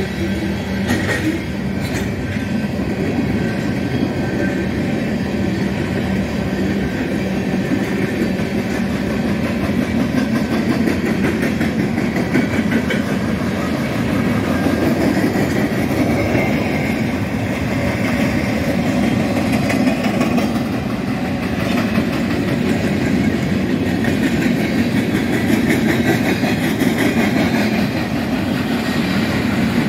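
Mixed freight train of boxcars, tank cars and flatcars rolling steadily past, a continuous rumble of steel wheels on the rails.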